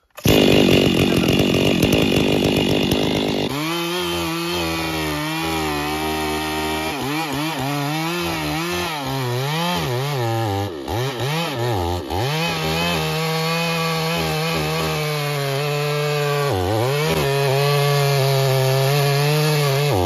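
Two-stroke chainsaw running hard just after starting, then sawing into a thick tree trunk. Its engine pitch dips and recovers repeatedly as the chain bogs in the wood, then holds steady near the end.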